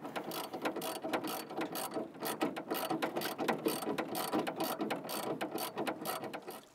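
Ratchet wrench clicking in quick runs as 9/16-inch nuts are tightened onto bus bar terminal studs; the clicking stops near the end.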